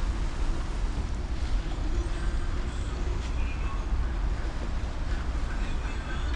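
Steady low rumble of wind buffeting the microphone on the open deck of a cruise ship under way.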